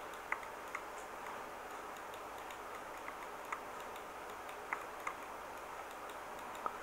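Faint, irregular clicks of a computer mouse, about seven in all, over a low steady hiss of room tone.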